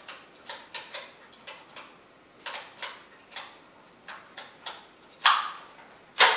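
Light, irregular clicks and ticks of hands handling small paper number labels, followed by two much louder knocks near the end.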